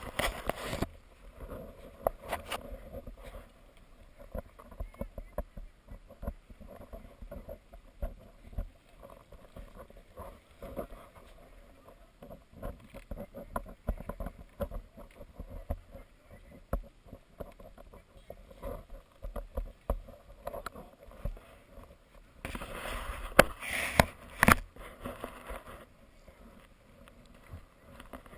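Rustling and scattered knocks of handling noise on a body-worn action camera, with jacket fabric and gloves brushing the housing. There is a louder, denser stretch of rustling about two-thirds of the way through.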